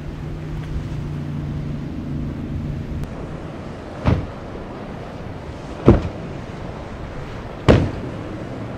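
Boat engine drone with wind and surf noise. After about three seconds this gives way to a Contender center-console boat pounding through inlet waves, its hull slamming three times about two seconds apart.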